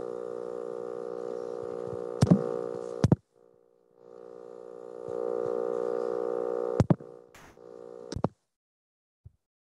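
Steady electrical hum with many overtones. Sharp clicks come about two and three seconds in; the hum cuts out after the second click, returns a second later, then stops after more clicks about eight seconds in.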